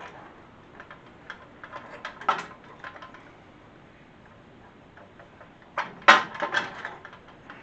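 Light clicks and knocks of a garden tractor's sheet-metal dash tower being handled, then a cluster of louder metal clunks and scrapes about six seconds in as the tower is lifted up off the steering column.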